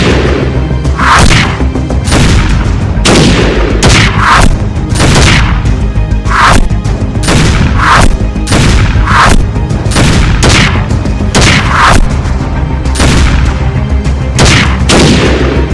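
Loud dramatic action soundtrack music with a steady low bed, punctuated by heavy booming hits and cracks about once a second.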